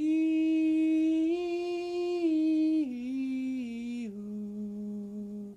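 A man's voice humming a slow, wordless melody of long held notes. The notes step up briefly, then step down lower and lower, and the voice stops abruptly just before the end.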